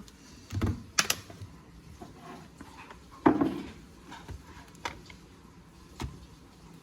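Scattered clicks and knocks as a creamer bottle and coffee mug are handled, about five in all, the loudest a knock about three seconds in.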